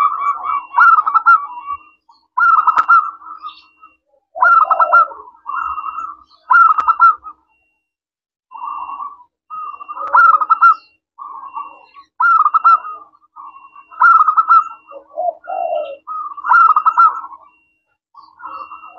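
Zebra dove (perkutut) cooing repeatedly: short phrases of rapid rolling coos, a new phrase every second or two with brief pauses between.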